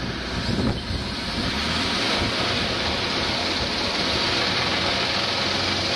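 Roller starter spinning the rear wheel of a Triumph-engined sprint bike, turning the engine over without it firing: there is no spark, so the engine is only being turned to get oil round it. A steady rushing noise that builds a little over the first couple of seconds.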